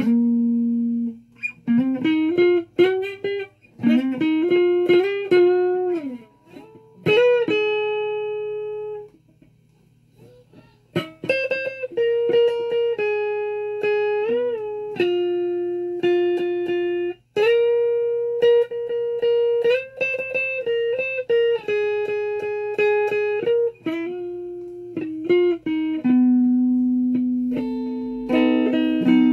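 Flying V-style electric guitar playing a slow single-note melody of long sustained notes, some of them bent up and down in pitch, with a short pause about a third of the way through.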